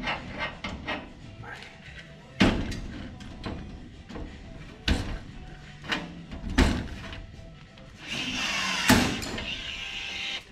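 Several sharp metal knocks and clunks from work on the aluminum deck panels of a race car, then a cordless drill runs against the deck for about two seconds near the end. Background music underneath.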